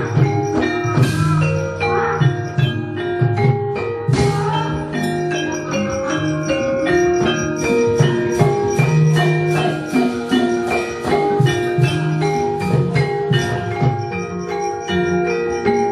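Javanese gamelan playing brisk battle music for a wayang kulit fight: a dense run of metal-keyed mallet notes over lower held notes, with sharp metallic crashes about one and four seconds in.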